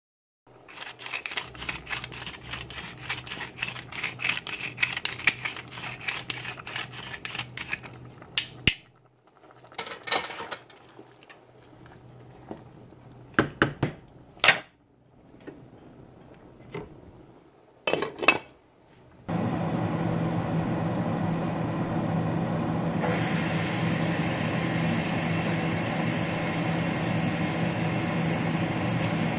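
A pepper mill grinding in a rapid rasping run for about eight seconds over a pot of curry. Then come a few scattered clinks and scrapes, and about two-thirds of the way in a loud steady rushing noise starts and holds.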